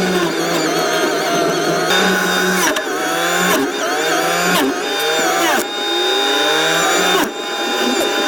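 Forestry mulcher on a Cat 299D3XE compact track loader running hard. Its whine repeatedly drops in pitch and climbs back as the head bites into wood and recovers, with several abrupt breaks.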